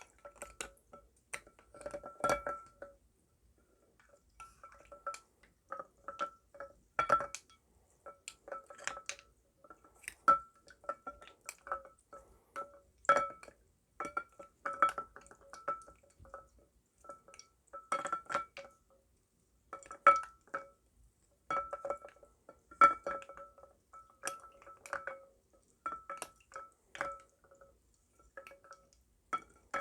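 A glass of iced lemon tea clinking over and over. Irregular sharp taps come a few times a second, and each one makes the glass ring briefly at the same two pitches.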